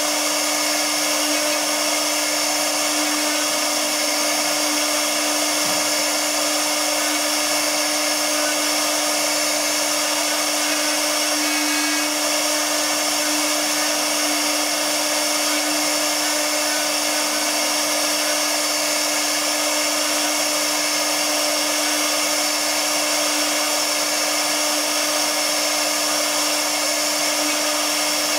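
CNC router spindle running steadily while its carving bit routes a relief pattern into MDF board: a constant whine over the even hiss of the cut.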